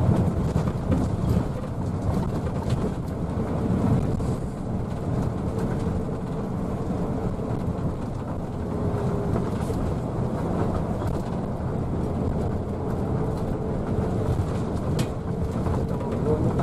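Intercity bus driving at speed, heard from inside the cabin: a steady low rumble of engine and road noise.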